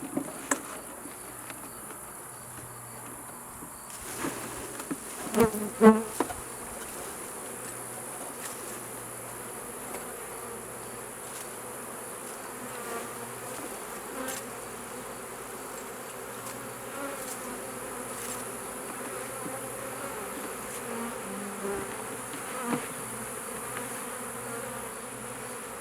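A swarm of honeybees buzzing steadily in a dense, agitated hum as they are shaken from a tree branch into a hive box. A few loud knocks and rustles come about five to six seconds in, the loudest moment.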